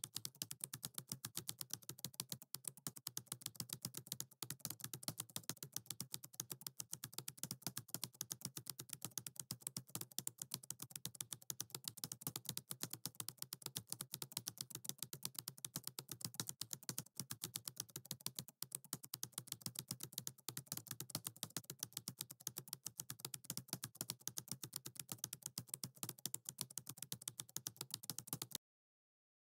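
Rapid, continuous keyboard typing clicks that stop suddenly shortly before the end.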